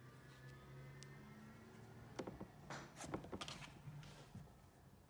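Faint handling of cloud slime: a few soft sticky clicks and squishes in a short cluster from about two seconds in, over a low steady hum.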